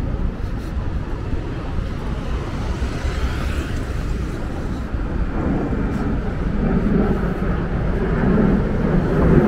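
Road traffic on a busy multi-lane city avenue: a steady low rumble of passing cars. It grows louder from about halfway through as vehicles pass close by.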